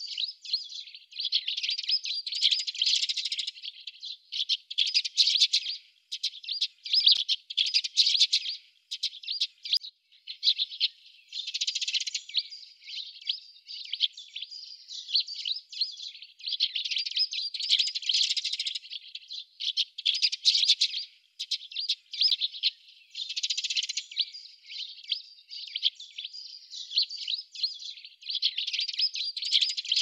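Sparrows, Eurasian tree sparrows and house sparrows, chirping continuously in dense, overlapping bouts of short chirps.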